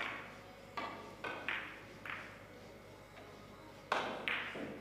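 Cue tip striking the cue ball of a three-cushion carom billiards table, followed by sharp clicks of the balls colliding and hitting the cushions, with two loud clicks about four seconds in.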